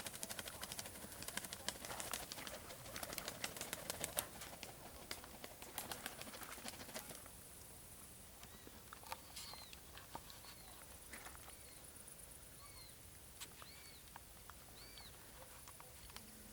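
Pigeons' wings flapping and clattering for the first half, then quieter, with a few short high bird chirps about once a second.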